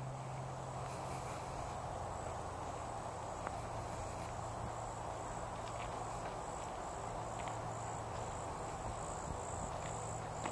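Insects trilling at a high pitch in a steady pulsing rhythm that becomes more distinct in the second half, over a steady hiss of outdoor background noise with a few faint ticks.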